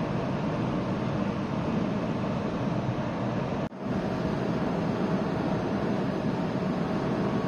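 Steady noise of the large car ferry Sunflower Sapporo, a low mechanical hum with rushing air, as heard on its open deck. It breaks off for an instant a little past halfway, then carries on unchanged.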